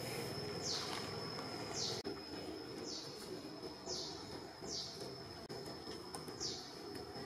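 Outdoor forest ambience: a steady high-pitched whine with a short, falling call repeating about once a second, over a low background rumble.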